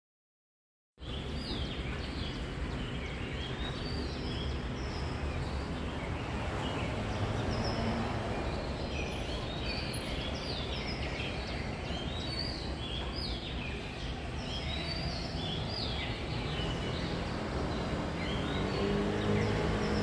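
Street ambience: a steady rumble of road traffic with many short, high bird chirps throughout, and a vehicle engine growing louder near the end.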